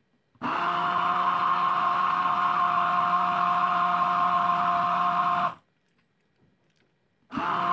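Electric hand blender motor running steadily with a constant whine as it purees banana and milk in a glass beaker. It cuts off abruptly about five and a half seconds in, then starts again near the end.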